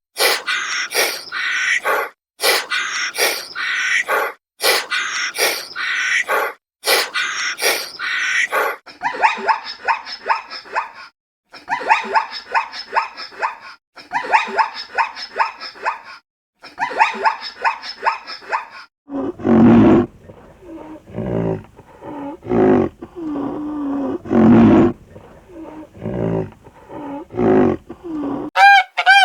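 Animal calls in a run of separate clips: fast, harsh calls repeated several times a second for the first half, then deeper calls from about two-thirds of the way in.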